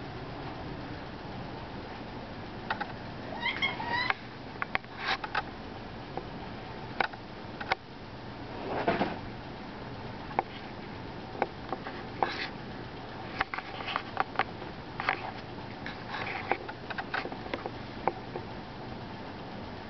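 Scattered short taps and rustles of a cat scrabbling and hopping on a bedspread, over a steady background hiss, with a brief squeaky pitched sound about three and a half seconds in and a louder rushing noise about nine seconds in.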